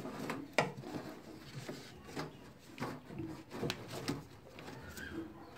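Irregular clicks and knocks of hands handling a tractor's RPM-meter cable and wiring.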